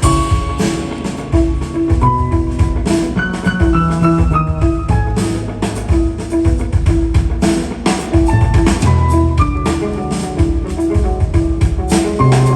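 Jazz trio music: piano over a busy drum kit, with a low bass line under it.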